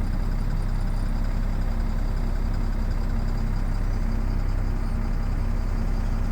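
Heavy diesel engine of earthmoving equipment running at a steady, even speed, a low drone that does not change.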